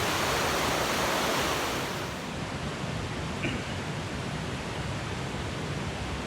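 Steady rushing of a waterfall, dropping a little in level about two seconds in.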